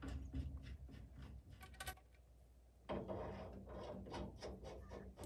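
Faint handling noises from plumbing a gas furnace's gas supply: light clicks and rubbing of a brass gas fitting and a flexible gas line being worked by hand, with a denser stretch of rustling from about three seconds in.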